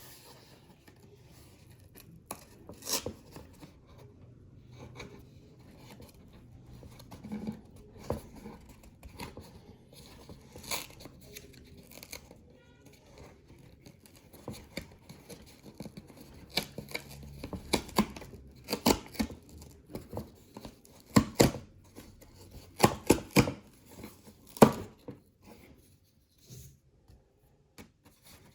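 Hands opening and handling a sneaker box and its packaging: a string of irregular sharp clicks, knocks and tearing sounds, busiest in the second half.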